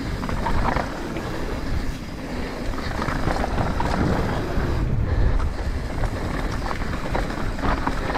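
Wind buffeting an action camera as a 2021 Commencal Meta AM 29 mountain bike descends dirt singletrack at speed, with tyres rolling on the dirt and the bike rattling over bumps.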